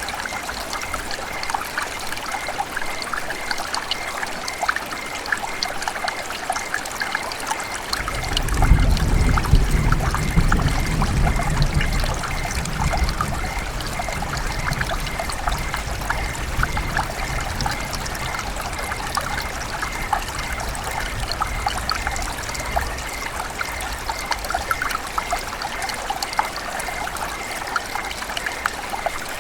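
River water running and trickling, a steady babble of many small splashes. About eight seconds in a low rumble rises under the water, strongest for a few seconds, then fades away.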